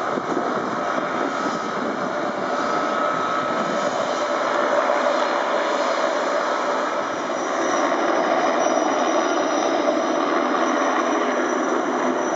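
Bell 206B-3 JetRanger III helicopter running, its Allison 250 turboshaft whining over the rotor noise. The sound grows louder about halfway through as the helicopter lifts off into a low hover.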